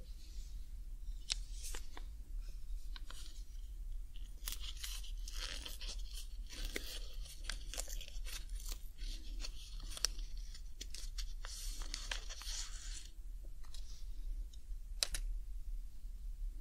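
Alcohol cleaning pad crinkling and scratching as it is handled and rubbed over a Happy Hacking Keyboard Professional 2, with many small clicks. The rubbing is densest through the middle stretch.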